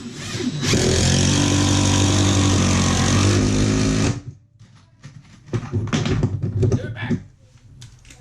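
Power driver running for about three and a half seconds, driving a screw down through the plywood subfloor layers, then cutting off suddenly. Scattered knocks and clatter follow as the tool and screws are handled.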